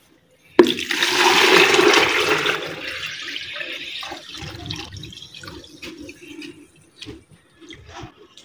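Red drink poured from an aluminium pot into a plastic jug: a loud splashing pour that starts suddenly about half a second in, then slowly dies away over the next few seconds.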